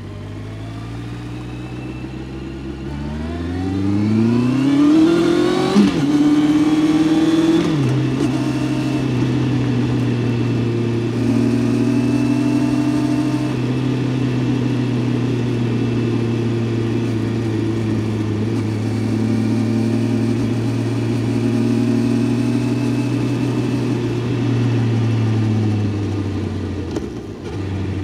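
Honda CBR650F's inline-four engine pulling hard, its pitch climbing steeply for about six seconds before dropping sharply on an upshift. It climbs briefly again and drops with a second shift about eight seconds in, then runs at a steady cruising pitch, which falls away near the end as the throttle closes.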